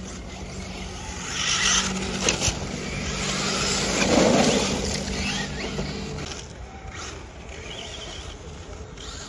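Electric radio-controlled off-road trucks running on a dirt track: motors whining and tyres scrabbling over dirt, loudest about four seconds in as one truck passes close, then fading.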